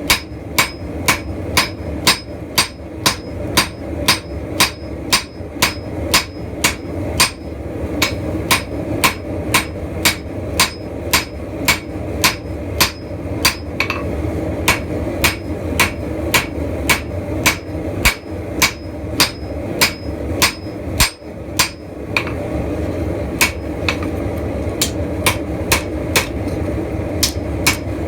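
Blacksmith's hand hammer striking hot steel on an anvil in a steady rhythm of about two blows a second, forging a spear. A steady rushing noise runs underneath, and there is a brief pause about three-quarters of the way through.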